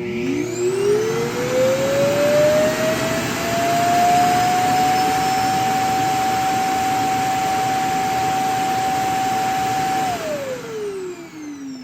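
Roomba i4 auto-empty base's suction motor emptying the robot's bin into a newly fitted disposal bag. It starts abruptly with a loud rush of air and a whine that rises over a few seconds to a steady pitch. Near the end it winds down with the whine falling.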